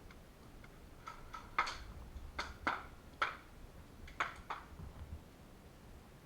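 Airsoft guns firing in single shots: about eight short, sharp pops spaced irregularly, from about a second in to past four seconds in.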